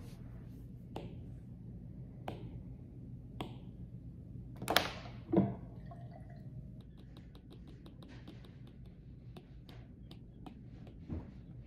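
Quiet desk-work sounds over a steady low room hum: a few light clicks, then two louder clunks about halfway through as a stainless steel tumbler is handled. After that comes a run of quick light ticks of an Apple Pencil tapping on an iPad's glass screen.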